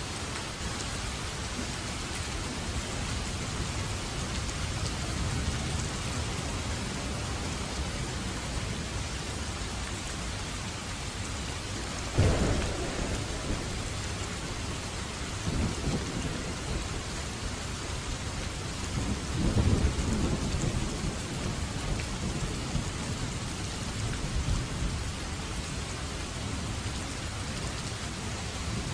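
Steady heavy rain with thunder: a sharp crack about twelve seconds in, then rolling rumbles a few seconds later.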